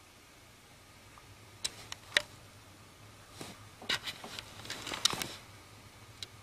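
Scattered soft clicks and rustling close to the microphone in a quiet room, a couple around two seconds in and a dense cluster about four to five seconds in.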